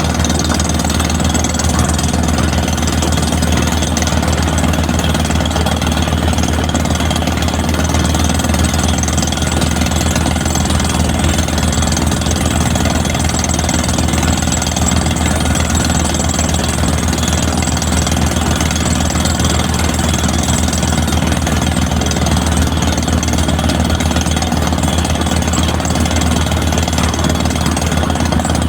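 Excavator's diesel engine running steadily at a constant speed, with an even low throb and no change in pitch or level.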